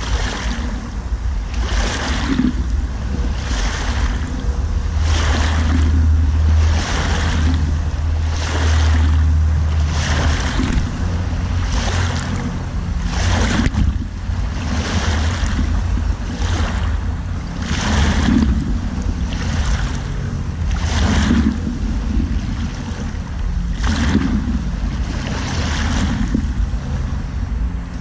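Small river waves lapping and washing over pebbles at the water's edge, a splashing hiss that comes again about once a second, over a steady low rumble.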